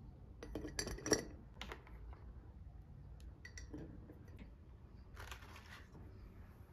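Kitchenware clinking as it is handled and set down: several light clinks and taps in the first couple of seconds and again a few seconds in, with a short rubbing sound about five seconds in.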